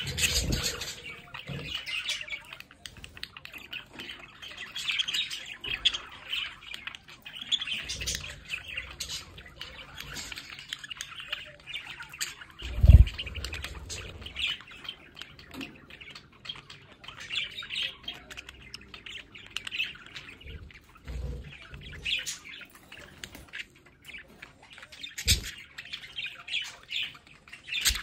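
Pet budgerigars chirping and warbling in continuous chatter. A few low thumps break in, the loudest about halfway through.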